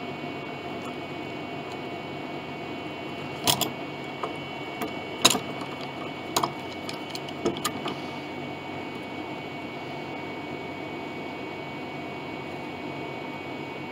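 Several sharp metal clicks and knocks in a cluster from about three and a half to eight seconds in, the loudest near the middle: a steel bar clamp being handled and its sliding jaw set in place to clamp a glued wooden piano part. A steady hum runs underneath.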